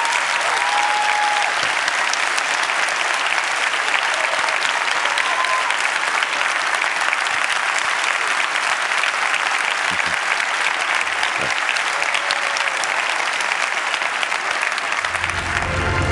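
Large audience applauding steadily, with a few whistles in the first second. Music comes in just before the end.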